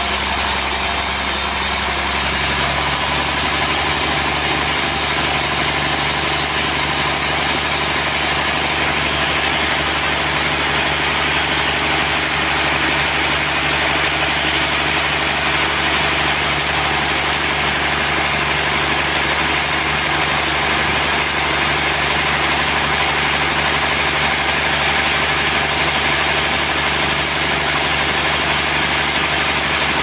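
Large band sawmill running steadily, its blade cutting through a trembesi (rain tree) log, with a continuous machine hum. The hum shifts in pitch about two seconds in.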